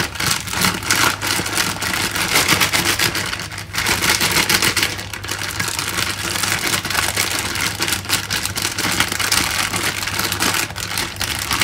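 A plastic Ziploc bag crinkling and rustling steadily as the napa cabbage inside, dressed with sesame oil, is squeezed and kneaded by hand, with a couple of brief pauses.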